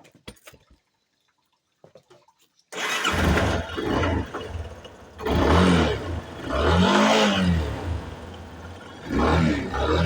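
Yamaha Fazer 250's single-cylinder four-stroke engine on its stock exhaust starting up about three seconds in, then revved in several throttle blips that rise and fall back toward idle.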